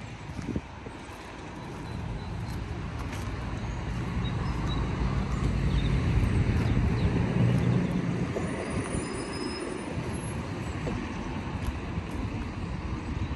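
A road vehicle passing, with engine rumble and tyre noise over the general hum of traffic. It swells to its loudest about halfway through and then fades.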